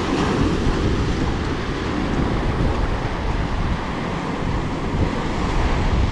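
Ocean surf breaking and washing over a rocky shoreline, with wind rumbling on the microphone: a steady, even wash of noise.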